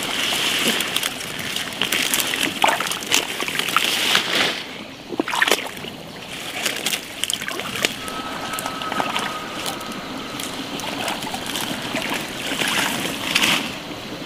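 Water hyacinth being pulled from a shallow pond by hand: water splashing and sloshing, with leaves rustling and many short crackles as the plants tear loose.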